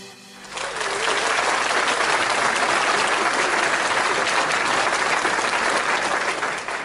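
Applause from a crowd: dense clapping that starts about half a second in, holds steady, then fades near the end.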